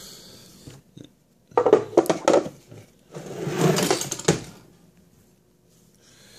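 Handling of an old mechanical cash register: a few sharp clicks and knocks, then about a second of rattling clatter, dying away near the end.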